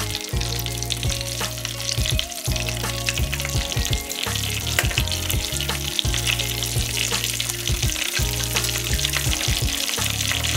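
Stuffed yeast-dough balls deep-frying in hot oil with a steady crackling sizzle, over background music.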